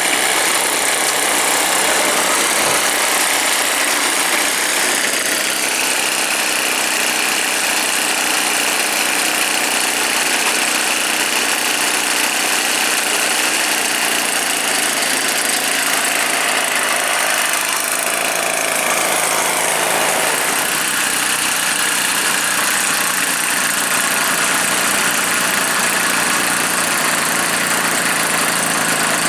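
Druzhba chainsaw's two-stroke engine running steadily, driving a homemade snowblower; its pitch shifts briefly about two-thirds of the way through.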